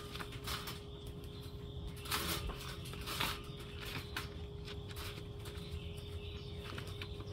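Cat shifting about inside a wire-mesh live trap: scattered rustles and rattles, the strongest about two and three seconds in, over a steady hum.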